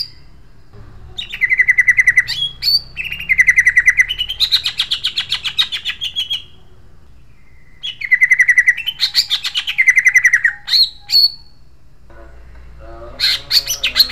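Male greater green leafbird (cucak ijo) singing loud, fast rolling trills with a harsh, sharp tone, in bursts of two to three seconds separated by short pauses. Near the end the song turns into rougher, squawkier chatter.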